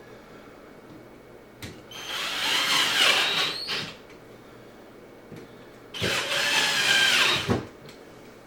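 Power drill with a Phillips bit driving screws, in two bursts of about two seconds each, its motor whine rising and falling in pitch.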